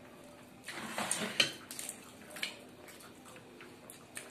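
Close-miked eating sounds: wet chewing, lip-smacking and mouth clicks from luchi dipped in potato curry being eaten by hand. The loudest is a short cluster of sharp clicks about a second in, with a few smaller clicks after.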